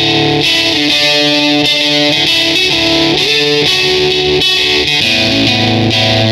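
Electric guitar played through a Wyse Audio Devices Cough Syrup two-transistor fuzz pedal. Heavily fuzzed sustained notes change every half second to a second, with one note bent upward about three seconds in.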